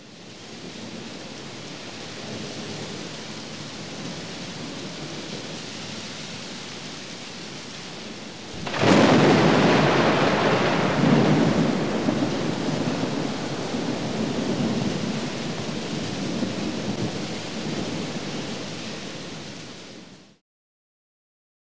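Steady rain, then a sharp thunderclap about nine seconds in that rolls into rumbling thunder and slowly dies away.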